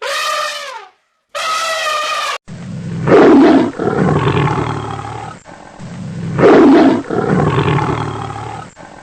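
Two short pitched animal calls, then a large animal roaring twice, each roar loudest at its start and trailing off over a couple of seconds.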